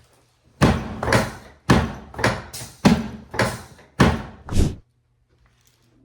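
Eight loud thumps in four evenly spaced pairs, about one pair a second, stopping abruptly near the end.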